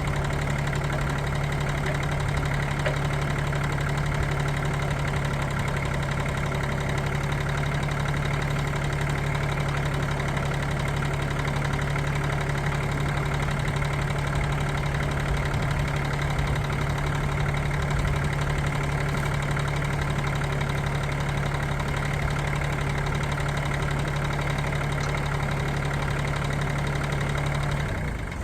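Kioti CS2610 subcompact tractor's three-cylinder diesel engine running steadily, then shut off near the end.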